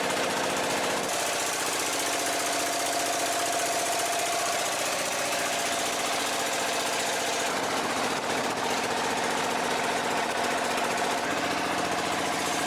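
Boat engine running steadily with a rapid, even knocking beat, over a continuous hiss.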